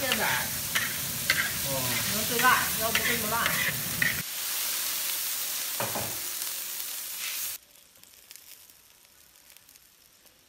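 Chopped green beans sizzling in a large iron wok as a metal spatula stirs them: a dense, steady hiss with a scrape or knock about six seconds in. Once liquid is in the pan for stewing the hiss stays steady, then cuts off abruptly to near silence about three seconds before the end.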